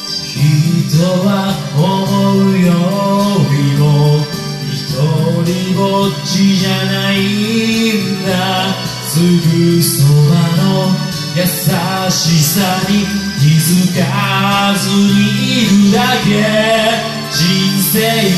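A singer performing a gentle Japanese pop ballad over a karaoke backing track, the vocal line running continuously over the accompaniment.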